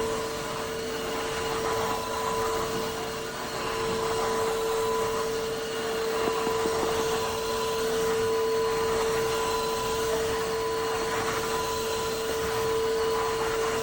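Tineco iFLOOR 3 cordless wet-dry vacuum mop running, a steady motor whine over the rush of its suction, the level swelling and easing only slightly.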